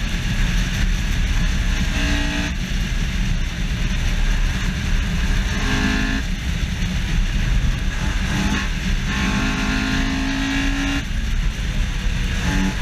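Honda S2000's F20C four-cylinder engine running hard at high revs around the track, heard from a bumper-mounted camera. Its pitched note rises out of a heavy, constant wind and road roar in several stretches, the longest lasting about two seconds near the end.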